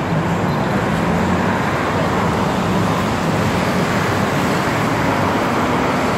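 Busy city street traffic: cars and motorbikes driving past, a steady, even wash of engine noise.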